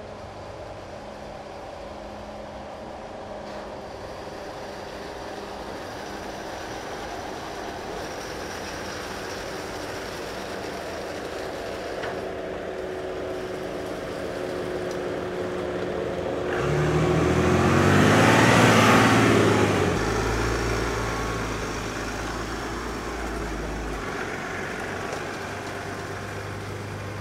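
Mercedes-Benz G-Class engine running at low speed as the SUV creeps down a steep steel ramp. It grows steadily louder and passes close by about two-thirds of the way through, its pitch falling as it goes past.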